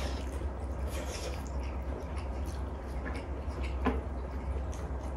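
Eating noises at a table: soft chewing and slurping of noodles and the faint tapping of chopsticks, with one sharper click about four seconds in, over a steady low hum.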